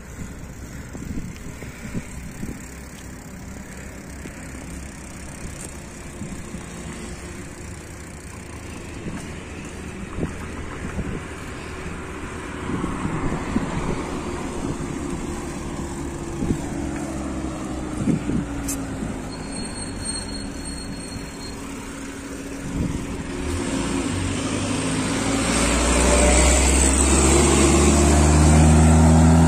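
Road traffic and wind on the microphone, heard from a moving bicycle. A vehicle's rumble grows steadily louder over the last several seconds.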